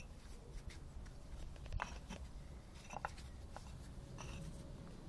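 Clay paving bricks knocking and clacking against one another as they are set by hand on a sand bed: a few sharp, scattered knocks over a faint low rumble.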